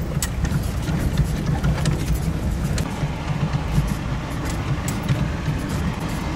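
Four-wheel-drive vehicle driving slowly over a rough, rocky track, heard inside the cab: a steady low engine rumble with scattered knocks and rattles as it jolts over the rocks.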